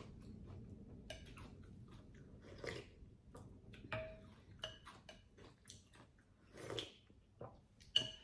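A person chewing and eating pho: soft, irregular mouth smacks and small clicks.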